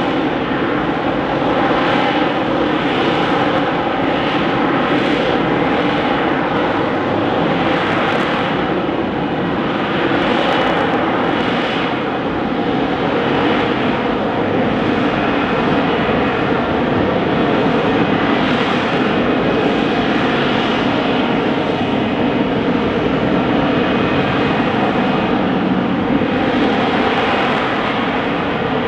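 F-35B in a STOVL hover with its lift fan engaged: the F135 jet engine and shaft-driven lift fan give a loud, steady roar with a constant whine running through it.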